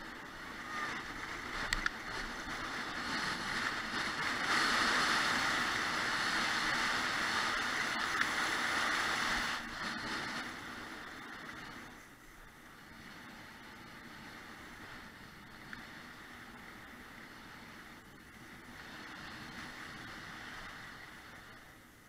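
Rushing, splashing water. It is loudest from about four to ten seconds in, then settles to a quieter, steady wash.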